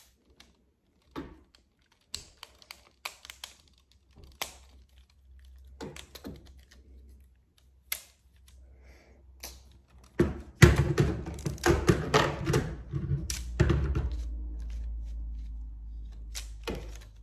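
Plastic Lego pieces of a rubber-band pistol clicking and clacking as it is handled and taken apart. From about ten seconds in, the knocking and rattling get denser and louder.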